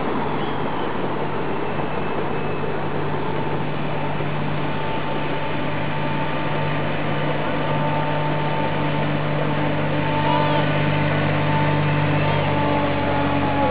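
Ride-on miniature railway train running along the track with passengers aboard: a steady low hum over a noisy rumble.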